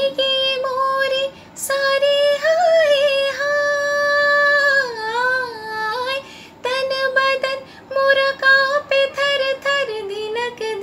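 A woman singing a Hindi film song without accompaniment. She holds long notes with wavering turns and glides for the first several seconds, then moves into shorter, quicker phrases.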